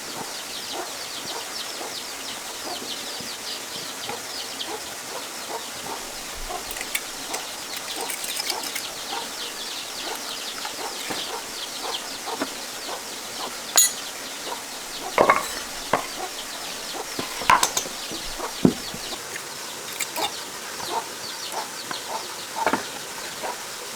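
Chickens clucking, with scattered short calls and a few sharper knocks in the second half.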